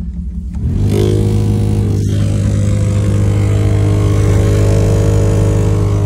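Car heater blower fan switched on, starting about a second in and running steadily with a loud, even hum over rushing air. This is the weird noise that the mechanic puts down to the blower motor.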